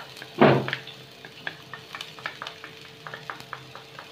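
Chopped onions frying lightly in oil in a nonstick pan, with a faint sizzle. A wooden spatula scrapes loudly about half a second in, then keeps up a run of short scrapes and taps against the pan as the onions are stirred.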